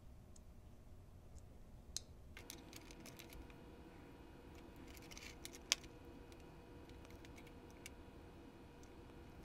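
Small clicks and taps of a model locomotive's plastic motor housing and parts being handled and fitted together by hand, with one sharp click a little before six seconds in. A faint steady hum comes in about two seconds in.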